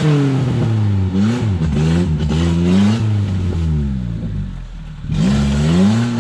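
Suzuki Samurai 4x4's engine revving up and down again and again under load off-road. Near the end it eases off for about a second, then picks up again.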